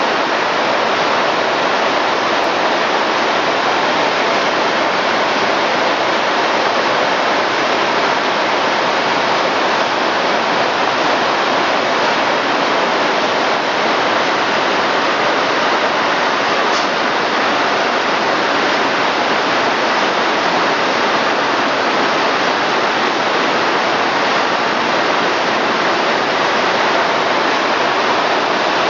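High-speed can conveyor line running, cans streaming past: a loud, steady, even rush of noise with no distinct beat.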